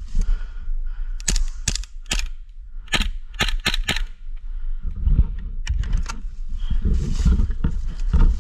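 Airsoft gun firing single sharp cracks, about seven of them between one and four seconds in, then a few more near the end. After about five seconds, rustling, crunching dry leaves and low thumps as the player moves across leaf litter.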